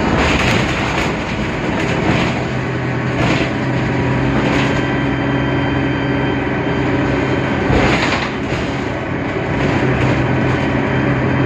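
Mercedes-Benz Citaro O530 Ü city bus running, its six-cylinder OM 906 hLA diesel engine and Voith automatic gearbox giving a steady low hum over road rumble. Several brief rattling bumps come through, the clearest about eight seconds in.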